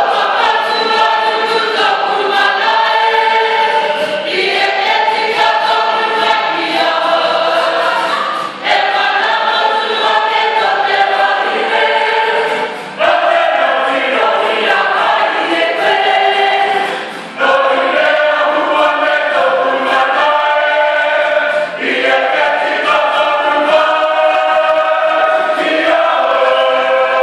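A choir singing in harmony, in sung phrases with brief breaks for breath about every four to five seconds.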